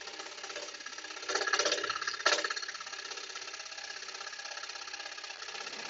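Axminster AP535SS 21-inch scroll saw running, its reciprocating blade cutting a thin wooden blank with a steady, fast mechanical chatter. It gets louder for about a second from a little over a second in, ending in a sharp click.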